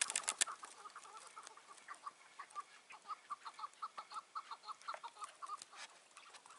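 Chukar partridges calling: a long run of short clucking notes, several a second, with a few sharp clicks at the very start.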